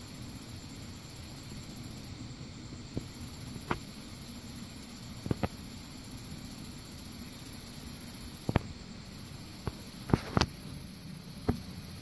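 Scattered sharp clicks and knocks, handling noise from a hand-held camera being moved about, over a steady low hum.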